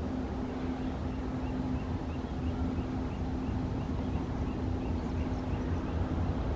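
Heavy freight train running: a steady low rumble with a constant droning hum. A small high chirp repeats about twice a second through most of it.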